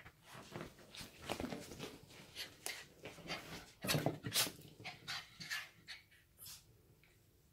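A small dog making a quick, irregular run of short breathy sounds, loudest about four seconds in.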